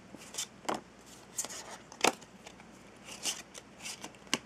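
A small packet of plastic playing cards being handled: irregular light clicks and scrapes as the cards are slid, spread and squared, with one sharper snap about two seconds in.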